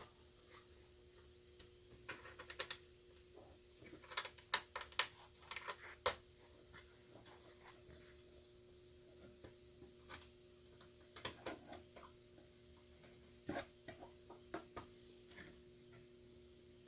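Small metal screws and an Allen wrench clicking and tapping against a miter saw's zero clearance table insert as the screws are set by hand, in scattered clusters of sharp clicks over a faint steady hum.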